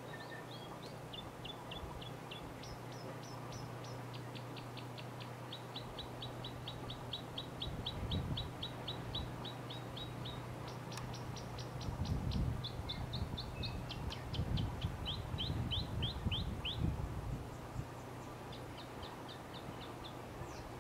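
New Zealand robin (South Island bush robin) singing: a long run of quick, high repeated notes, about four a second, in groups that step up and down in pitch, with a short break near the end. Low rumbles come and go in the middle.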